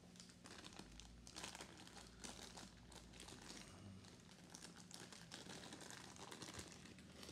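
Near silence: a faint steady hum with light, scattered crackling, from a motorized display turntable slowly rotating a diecast model van.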